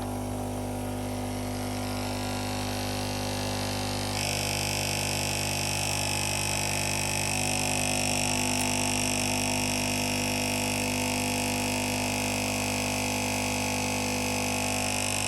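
Bosch Tassimo pod machine's pump running steadily as it brews a hot chocolate, a steady hum with a hissing layer joining about four seconds in as the drink flows.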